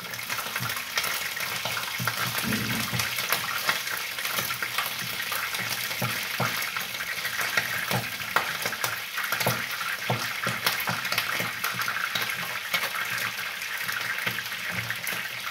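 Steady hiss of food cooking on a gas stove, with irregular knocks and scrapes of a wooden spoon stirring maize-meal porridge (ugali) in a metal pot.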